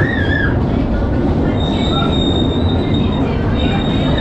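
Waltzer fairground ride spinning at speed: a loud, steady rumble of the cars rolling on their track, with high wheel squeals over it.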